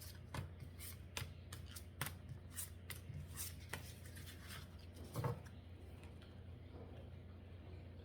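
Tarot cards being handled and laid out on a table: a quick run of crisp card snaps and taps, thinning out to a few soft ones in the second half.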